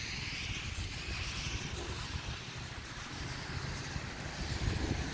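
Wind buffeting the microphone: a low, uneven rumble with a steady hiss over it.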